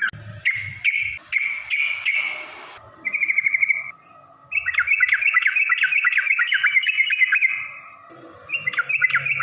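Yellow-vented bulbul (trucukan) singing its bubbly, chattering phrases: a quick even trill a few seconds in, then a long run of rapid warbled notes, the extended 'ropel' song used to lure other bulbuls into singing.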